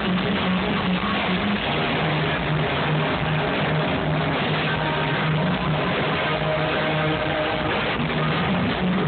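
Rock band playing live, with guitar and bass.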